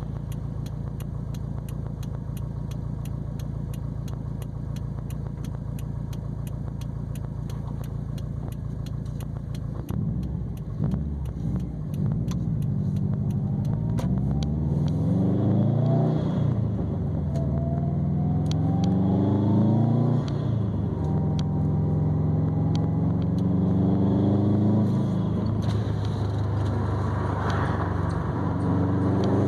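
Exhaust note of a 2020 Subaru WRX STI's turbocharged 2.5-litre flat-four through a non-resonated ETS catback and Grimmspeed catted downpipe. It idles steadily, then about ten seconds in the car pulls away and the engine note rises, drops back twice at gear changes, and settles into a steady, louder drone at cruising speed.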